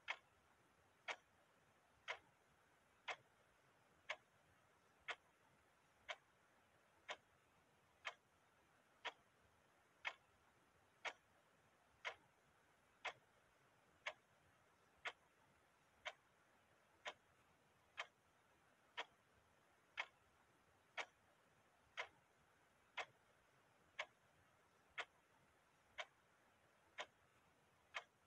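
Clock ticking steadily, one tick about every second.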